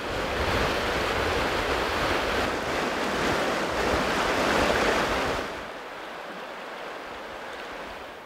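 Fast river water rushing over rapids, a steady loud rush of noise; about five and a half seconds in it drops to a quieter, still steady rush.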